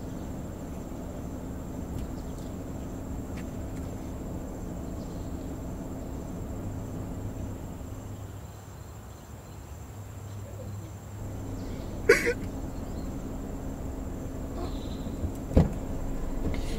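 Low steady background hum, broken about twelve seconds in by a man's single short, sharp sob, then a brief knock a few seconds later.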